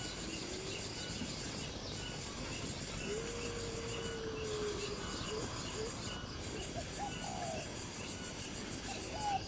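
Steady background hiss with a long even note near the middle, and a short run of quick calls from an animal about seven seconds in.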